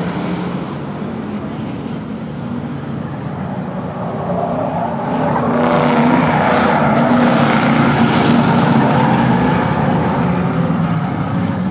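Several race-car engines and a school bus engine running on the track, getting louder about five seconds in as a pickup truck and a sedan pass close by.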